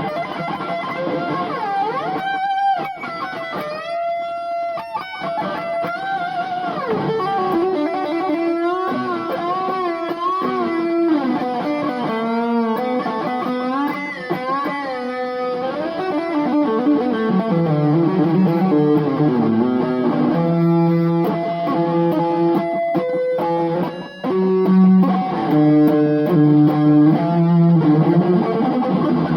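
Electric guitar playing a rock and roll lead solo: single-note melodic lines with string bends and vibrato, a little louder in the last few seconds.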